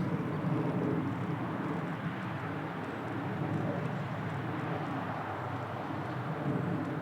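Steady low outdoor rumble, with no distinct shot or pellet strike.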